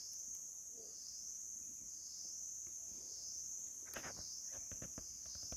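Insects chirring steadily, a high-pitched drone that swells and eases about once a second, with a few short clicks and rustles in dry leaves about four seconds in.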